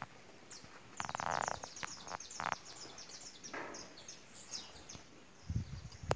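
Small birds chirping, many short high chirps that slide down in pitch, with a brief buzzy sound about a second in and a low rumble near the end.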